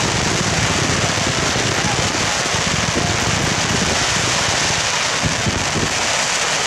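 Dense, continuous crackling of fireworks, a steady hiss-like fizz of many small crackling bursts.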